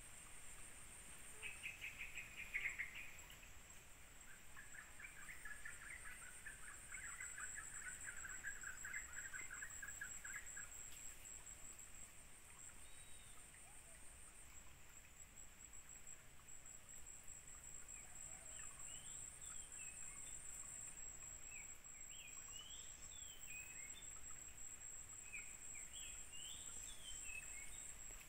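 Faint forest ambience with birds calling: a rapid run of repeated notes about two seconds in, a longer chattering run a few seconds later, then scattered short rising and falling chirps through the last ten seconds. A steady high-pitched insect drone runs underneath.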